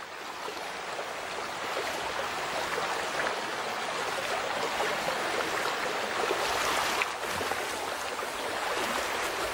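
Steady rush of a flowing river, open water running and trickling past an icy bank.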